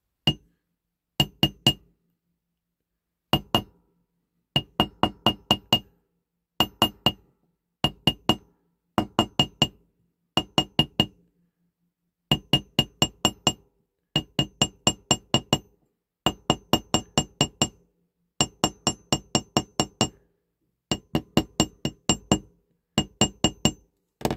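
A small hammer tapping a bent metal toy-car axle against a metal block to straighten it. The light, clinking metal taps come in quick runs of two to seven with short pauses between, and each tap rings with the same bright note.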